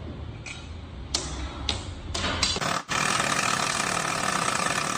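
A few sharp knocks over a low rumble, then about three seconds in a power tool starts and runs steadily with a loud hissing whir.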